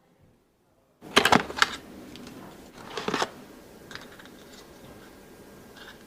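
Handling noises: after near silence, a cluster of sharp clicks about a second in, another about three seconds in and a lighter tap near four seconds, over a steady hiss.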